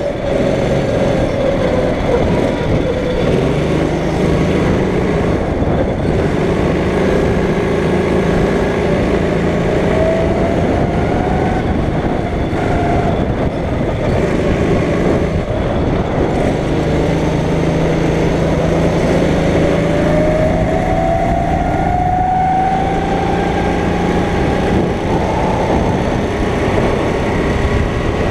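Go-kart engine running hard around a track, its pitch dropping off near the start and climbing again twice as it accelerates out of corners, over a steady rush of noise.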